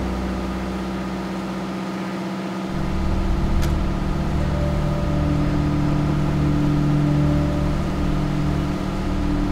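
Fire truck's diesel engine running steadily, driving the pump that feeds the aerial platform's water stream; a deeper rumble joins in about three seconds in.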